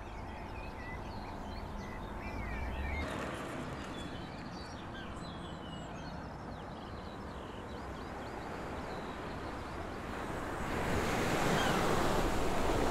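Outdoor ambience with birds chirping over a low background noise. About ten seconds in it gives way to the louder, steady wash of sea waves breaking on a sandy beach.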